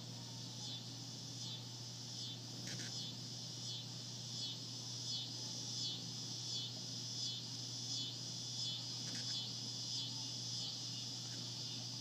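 Insect chorus outdoors: a steady high buzzing that pulses rhythmically, about three pulses every two seconds, over a constant low hum.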